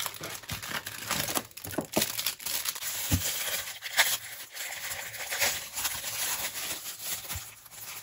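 Plastic wrapping around a stack of puff pastry sheets crinkling and rustling as it is pulled from its cardboard box and handled, with a couple of light knocks in the middle.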